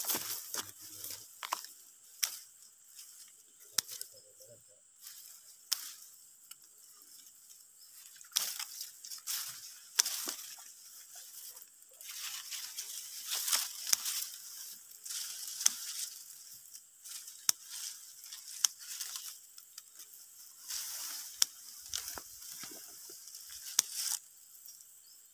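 Dry hill-rice stalks and leaves rustling and crackling as a hand gathers ripe panicles, with sharp snips at irregular intervals from scissors cutting the stalks.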